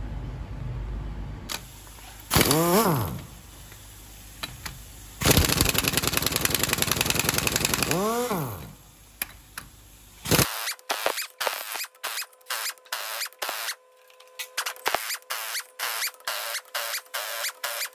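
Impact wrench hammering in two bursts, a short one and then a longer rapid rattle of about three seconds, each ending as the motor winds down in a falling whine. Then comes a run of sharp, evenly spaced clicks, about two or three a second.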